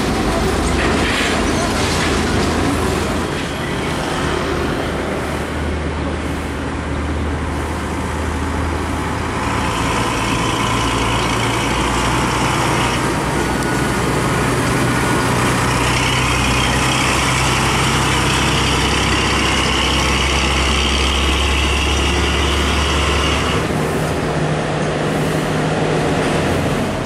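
Heavy diesel trucks passing slowly one after another, a flatbed trailer truck and then an Isuzu tractor-trailer, with a steady low engine drone. A hiss rises and falls over it as they pass.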